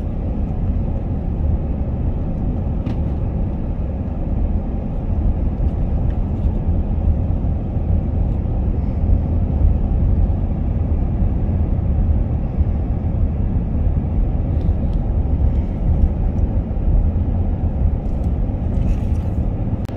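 Steady low rumble of road and engine noise heard inside a car's cabin while driving at highway speed.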